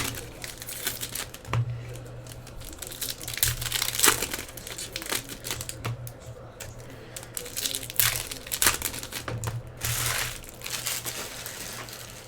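Foil wrapper of a 2016-17 Panini Hoops basketball card pack crinkling and rustling as it is opened by hand, with irregular crackles and sharp snaps.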